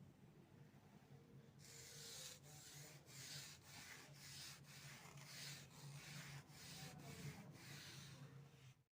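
Faint back-and-forth brushing of a paintbrush on canvas, about two strokes a second, starting about a second and a half in.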